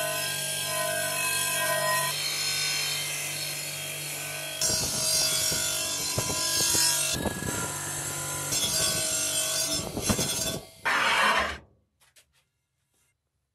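Bench grinder running with a wire wheel brushing the rust and old seasoning off a cast iron pan. At first a steady motor hum and whine; from about four and a half seconds in, loud scraping in surges as the pan is pressed to the wheel, cutting off suddenly near the end.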